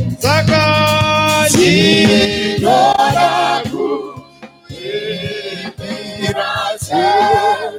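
Gospel choir singing with band accompaniment, in sung phrases with a brief dip a little past halfway.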